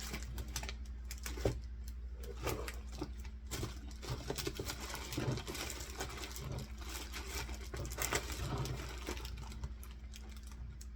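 Rummaging through a container of small items while searching for scissors: irregular clicks, clatters and rustles, over a steady low hum.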